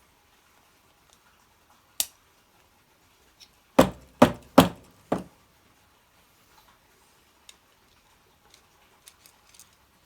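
Workshop handling noises as a small engine's carburettor is worked on: a sharp click, then a quick run of three loud knocks and a quieter fourth, followed by a few faint ticks of tools and small parts.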